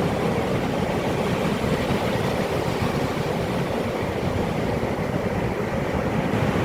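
Calm sea waves washing in, heard as a steady low rushing noise.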